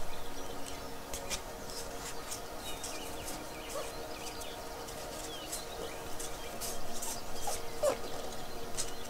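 Calm zen background music with held tones and bird chirps, over the crisp crackle of a deck of cards being shuffled by hand.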